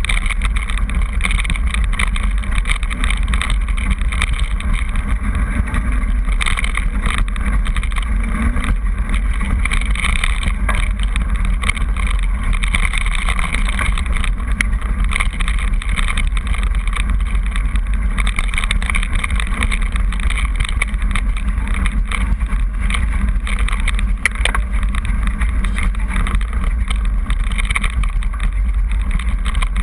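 Mountain bike riding fast down a loose gravel and stone track: a steady wind noise on the camera's microphone mixed with tyre crunch and many small knocks and rattles from the bike over the stones.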